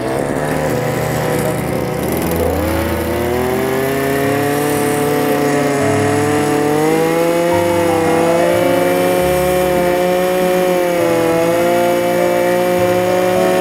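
Gas-powered ice auger's engine running, rising in pitch about two to three seconds in and then holding at high speed with small wavers as the auger bores into the ice.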